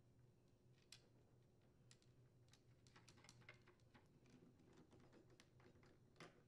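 Near silence with faint, scattered small clicks and ticks as nuts are threaded by hand onto a chainsaw carburetor's mounting posts and turned with a nut driver.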